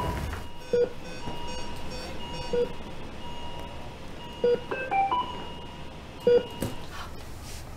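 Operating-theatre patient monitor beeping about once every two seconds, over steady high electronic tones.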